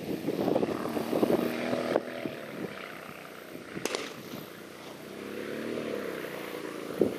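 Long-tail mud motor with twin exhausts running out on the water. Its steady engine note weakens after about two seconds and comes back stronger near the end, rising and falling slightly in pitch. A single sharp click sounds about four seconds in.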